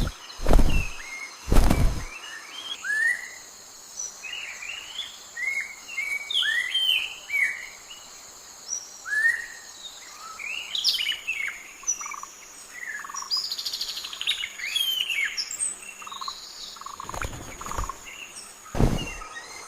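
Wild birds chirping and calling, many short rising and falling notes in a quick, busy chorus, over a faint steady high tone. A few loud thuds come in the first two seconds and again near the end.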